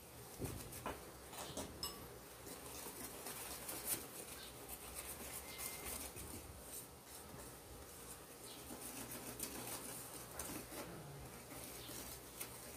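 Wire whisk working thick rice-flour batter in a stainless steel bowl: faint, irregular scraping with light clicks of the wires against the metal, one sharper click about four seconds in.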